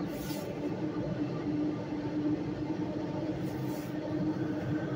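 Long Island Rail Road electric commuter train running at speed through a tunnel, heard from inside the car: a steady rumble with a low hum and two brief hisses, one near the start and one near the end.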